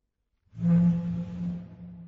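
A table moved across the floor of a big hall, starting about half a second in: a scraping drag with a low steady droning tone, fading away in the hall's reverberation.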